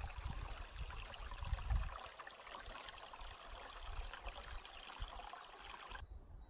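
Small waves lapping steadily on a lakeshore, with wind buffeting the microphone in the first couple of seconds. The water sound cuts off abruptly near the end.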